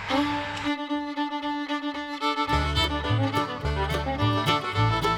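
Background music led by a fiddle, with a bass line and a steady beat coming in about halfway through.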